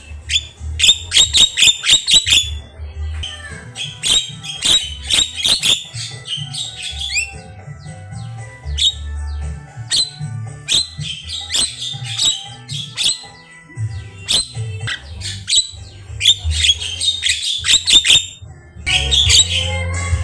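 Javan myna (jalak kebo) calling in rapid clusters of sharp squawks and chirps, with short pauses between bursts, over background music with a low bass line.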